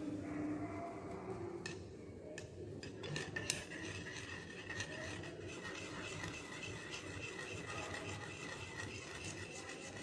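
Glass stirring rod scraping and tapping rapidly against a porcelain dish while stirring melting white beeswax and mineral oil, with a few sharper taps in the first few seconds.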